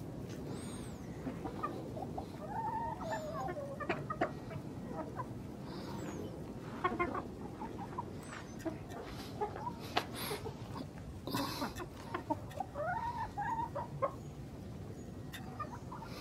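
Backyard chickens clucking, a string of short calls that rise and fall in pitch, with a few sharp taps here and there.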